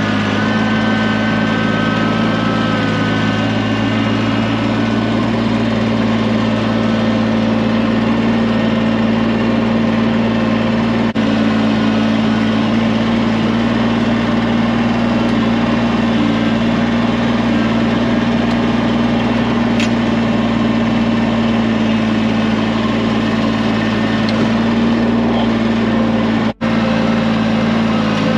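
Compact tractor engine running at a steady speed while the tractor is driven, a constant low hum throughout. The sound drops out for a moment near the end.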